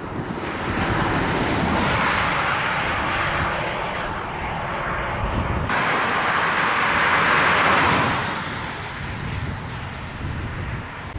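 Road traffic: vehicles passing, their noise swelling and fading twice, broken by a sudden cut about six seconds in.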